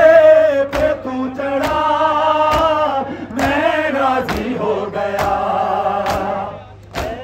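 A noha (Shia mourning lament) is sung by a crowd of men chanting together, partly through a horn loudspeaker. Sharp strikes land in unison about once a second: the mourners beating their chests in matam. Near the end the singing drops away while the strikes keep time.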